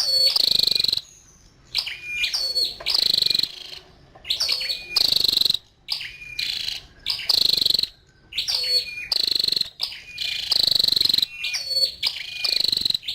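Female flowerpecker ('chim sâu đầu đỏ') calling: short, high, sharp calls repeated about once a second, each jumping up in pitch to a brief held note.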